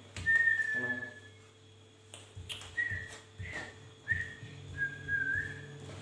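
A person whistling a slow tune: a long clear high note near the start, then a string of shorter notes, some sliding up at the end, with a few faint knocks from handling.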